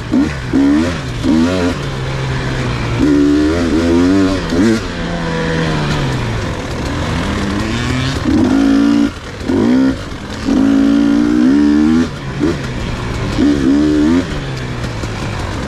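Dirt bike engine revving hard under racing throttle, its pitch climbing and falling over and over in bursts, with short drops between them.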